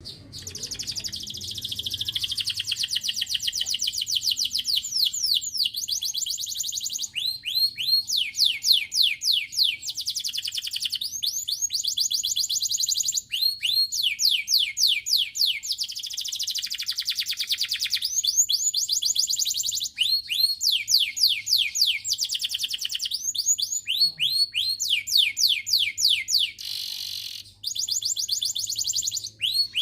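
Domestic canary singing: long rolling trills of rapidly repeated notes, delivered in phrases separated by brief pauses, over a faint low hum.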